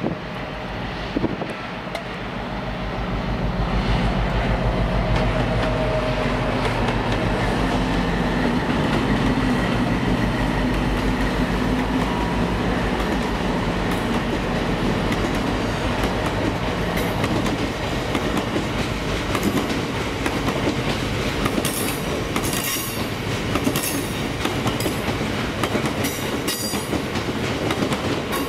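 Diesel train passing through a station: its engine runs loud and deep as it comes by, then the wheels give sharp clicks and brief squeals on the rails in the second half.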